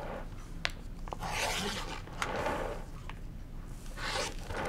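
Rotary cutter blade slicing through a two-strip cotton strip set along an acrylic quilting ruler on a cutting mat. There are two cuts, one just after the first second and one near the end, with a few light clicks between.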